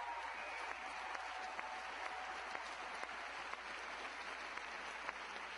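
Crowd applauding steadily, a dense patter of hand claps.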